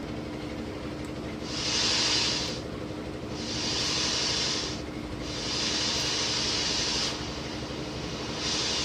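2N3055 transistor amplifier playing FM radio through its speaker: repeated bursts of static hiss, each a second or two long, over a faint steady tone. There is no mains hum, now that the board's broken capacitor connections are repaired.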